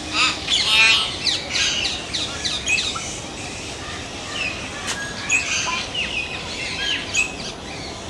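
Common hill myna calling: a quick string of short whistled and chattering notes for the first three seconds or so, then scattered single calls, several falling in pitch.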